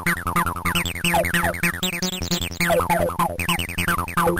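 Electronic music from an Amiga demo soundtrack: synthesizer sounds with repeated quick falling zaps over a pulsing bass.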